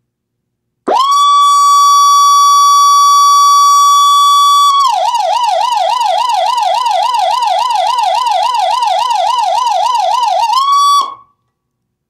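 Dietz model 237 electronic siren sounding. About a second in it sweeps up to a steady high tone. Partway through it switches to a fast yelp warbling three to four times a second, then goes back to the steady tone for a moment and cuts off near the end.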